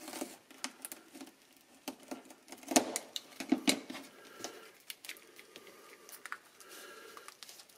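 Utility knife blade scraping and slicing along the plastic jacket of a 100-pair telephone riser cable, with a few sharper clicks about three seconds in. The slit jacket is then pried open by hand, its plastic rustling and crinkling against the wire bundles inside.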